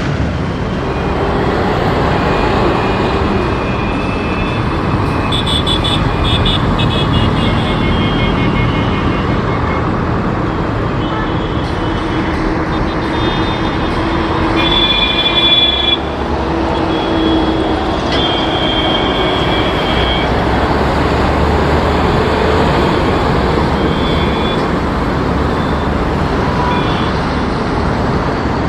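Steady rumble of jet airliner engines and road traffic, with faint high whines that come and go. A louder swell about fifteen seconds in cuts off suddenly.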